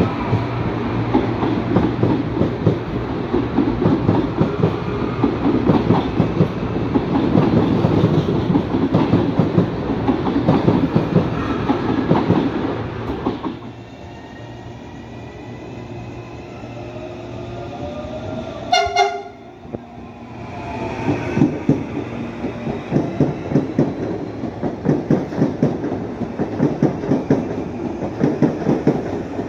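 Series 8500 electric trains: one rumbles close past with wheels clicking over the rails, then after a sudden drop a train approaches with a sliding electric whine. Near the two-thirds mark it gives a short horn blast, then passes with a rapid, rhythmic wheel clatter.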